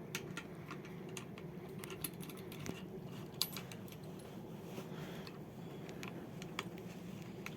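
Light metallic clicks and clinks of small hardware and hand tools as a motorcycle hand guard's expanding bar-end anchor bolt is worked and tightened into the handlebar, a few separate clicks over a faint steady hum.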